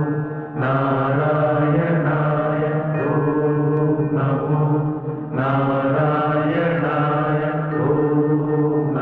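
Devotional mantra chanting set to music, with a steady drone underneath. The chant comes in long held phrases, with new phrases starting about half a second in, near four seconds and past five seconds.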